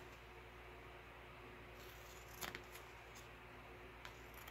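Scissors snipping paper: a few faint, short cuts, the clearest about two and a half seconds in, over a low steady hum.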